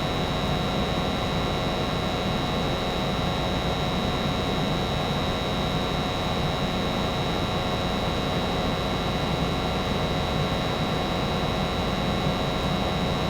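90% American Standard gas furnace running at steady state with its burners firing and the circulating blower on, giving an even rush of air and hum with a thin, steady high whine.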